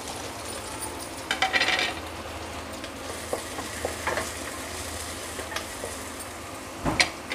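Sliced onions frying in a little oil in a kadhai, sizzling steadily while a spatula stirs them. The spatula scrapes against the pan, with a clatter about a second and a half in and a few knocks, the loudest near the end.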